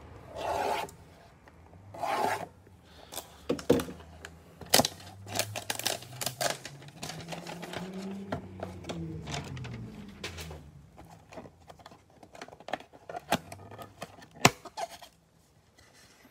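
Trading-card hanger box being opened by hand: clear plastic and cardboard rubbing, crinkling and clicking as the cellophane-wrapped stack of cards is slid out of its sleeve. Two louder rustles near the start, then a run of sharp clicks and scrapes.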